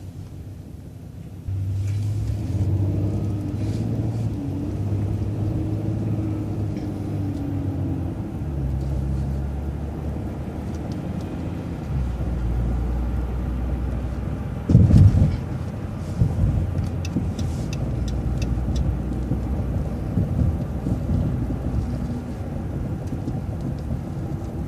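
City bus engine and road noise heard from inside the bus as it pulls away and accelerates. The engine note drops twice as the automatic transmission upshifts, and there is a loud thump about fifteen seconds in, with a few light rattles after it.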